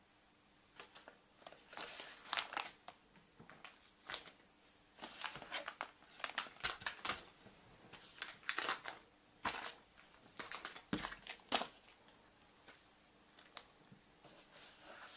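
Wrapper of a chocolate surprise egg crinkling and rustling as it is unwrapped by hand, in irregular bursts with scattered small clicks.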